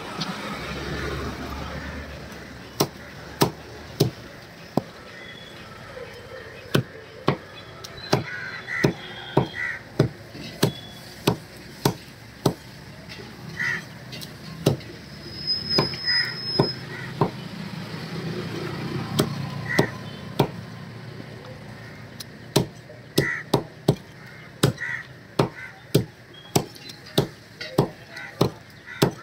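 Heavy butcher's cleaver chopping chicken on a wooden log chopping block. The sharp chops come singly and in quick runs of about two a second.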